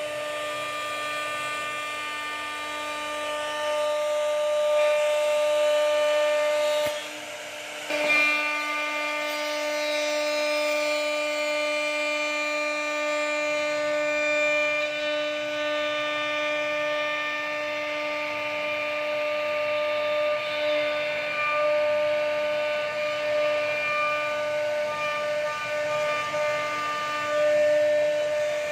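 CNC router spindle whining steadily at a high pitch as its bit carves a relief pattern into wood. The sound briefly drops away about seven seconds in, then resumes.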